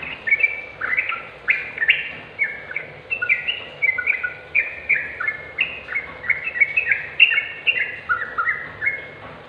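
Yellow-vented bulbul (trucuk) in full song: a rapid, unbroken run of short whistled notes jumping up and down in pitch, several a second, stopping just before the end.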